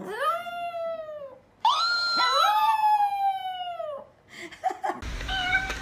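Small dog (Chihuahua) howling: two long howls, each rising and then sliding down in pitch, the second starting about a second and a half in and lasting over two seconds.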